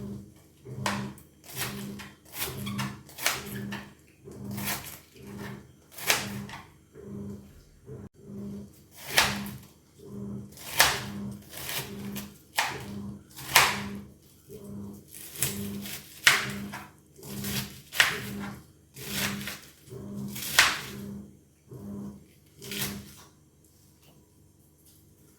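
Washing machine agitating: the motor hums in regular pulses, a little under one and a half a second, each with a sloshing, knocking stroke, and stops about 23 seconds in.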